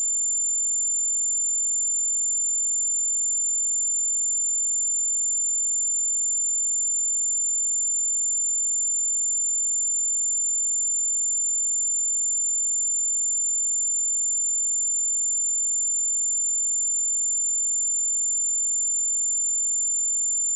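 Pure 7178 Hz sine-wave test tone, a single steady high-pitched whistle held at constant level.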